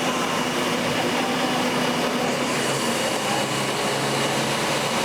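Steady mechanical hum from a running engine or machine, with a constant low drone and a faint high whine held over a haze of outdoor noise.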